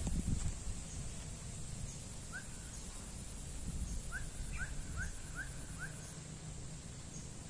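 A bird calling in short rising chirps: two about two seconds in, then five in quick even succession around the middle. A brief low rumble at the very start sits over steady outdoor background noise.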